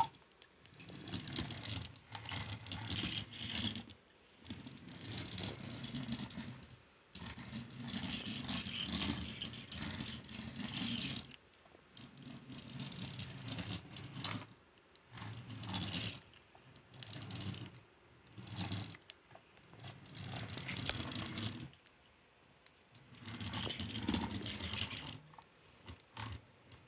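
RC Mecha-Dog robot dog toy walking on a wooden floor: its small electric motor and gears whir and its plastic legs clatter. It runs in short stop-start bursts of one to four seconds, about ten times.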